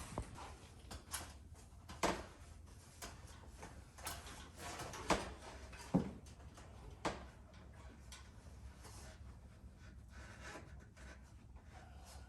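A handful of scattered knocks and clunks, the loudest about five and six seconds in, over a low steady hum.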